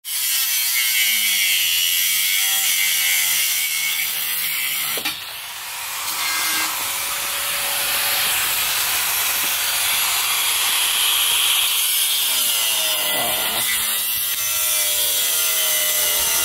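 Power saw cutting steadily, with a short dip about five seconds in, as the van's seats are cut free.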